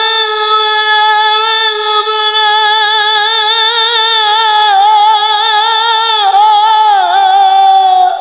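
Solo male voice singing a Punjabi kalam, holding one long high note without words, with a wavering vibrato and small ornamental turns. The note dips in a downward slide near the end and then stops.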